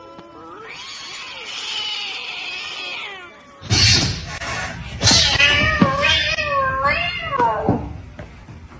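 Cats yowling and meowing: one long, wavering warning yowl, as one cat faces another, for the first few seconds. About three and a half seconds in, the sound changes abruptly to louder cat cries and meows over a rough, noisy background.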